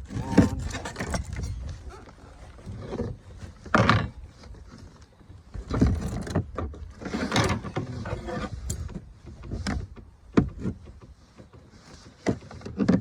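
Irregular knocks, thumps and scrapes of gear being handled, over a steady low rumble.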